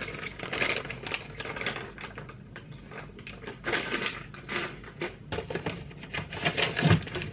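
Rapid, irregular clicking and rustling of plastic parts bags and packaging being handled and dug through in a cardboard kit box.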